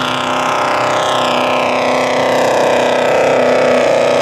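Formula Offroad hillclimb buggy's engine running hard up a steep dirt slope, its pitch slowly falling as it labours. The car is shifting into a higher gear too early, so the engine bogs and the climb loses momentum.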